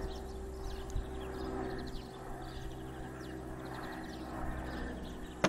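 Outdoor garden ambience: small birds twittering faintly over a steady low hum, with one sharp knock near the end.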